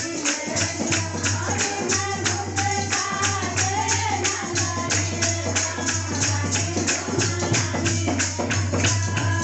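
Hindu devotional kirtan music: women's voices singing a bhajan to a tambourine that keeps a quick, steady beat of about three to four strokes a second.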